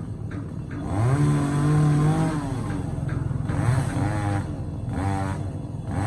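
Petrol chainsaw revved up from idle about a second in and held at high speed for about a second, then dropping back and revved again in several shorter bursts.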